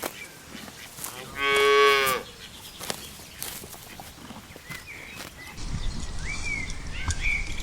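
A cow moos once, a single drawn-out call about a second long, starting about a second and a half in. Short bird chirps come near the end, over a low rumble that sets in after about five and a half seconds.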